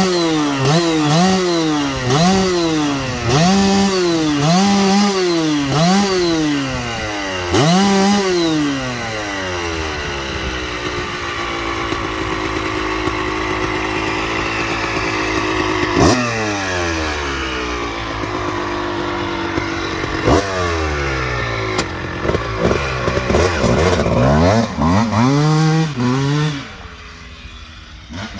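Kawasaki KX250 single-cylinder two-stroke engine being warmed up: about six quick throttle blips in the first eight seconds, then running steadier with its pitch slowly falling, revved again later, and dropping away near the end.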